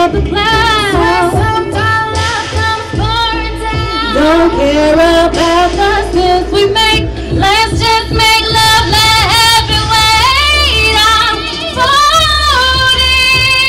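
A woman singing live into a handheld microphone, long held notes sliding and wavering through vocal runs with no clear words, over backing music with a steady bass.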